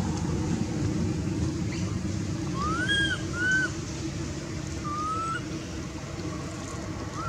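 Baby macaque giving short, thin coo calls, each rising and then levelling off: two close together about three seconds in, one about five seconds in and another just at the end. A steady low rumble of background noise runs beneath them.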